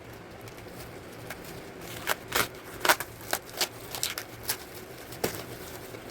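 Packaging being opened and handled: a run of about ten short, sharp crackles and clicks, loudest about three seconds in.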